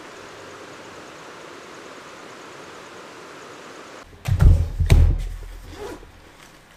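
A steady hiss, then, about four seconds in, two heavy deep thumps half a second apart, followed by a few lighter knocks.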